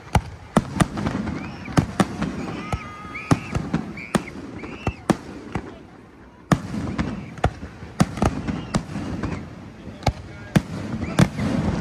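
Aerial fireworks going off in an irregular string of sharp bangs, several close together at times and a short lull about six seconds in, with crowd voices between the bangs.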